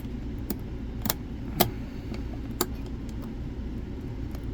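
A few sharp metal clicks from a padlock and its key being handled, four in the first three seconds, over a steady low hum.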